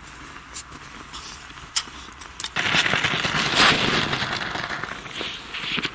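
Loud close rustling and crackling of clothing or fabric as a hunter moves right by the microphone, starting about two and a half seconds in and lasting about three seconds, with a few sharp clicks before it.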